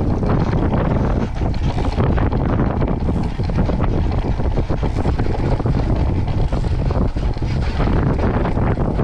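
Steady, loud wind noise buffeting the microphone of a camera mounted on a Moth sailing dinghy moving at speed, with the rush of air and water as it sails.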